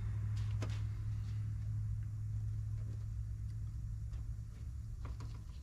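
A steady low hum, with a few light clicks of parts being handled: one about half a second in and a couple near the end.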